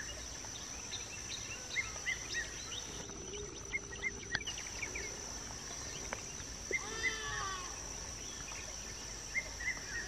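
Birds calling: short chirps repeated every second or so, and a call of several falling notes about seven seconds in, over a steady high insect drone.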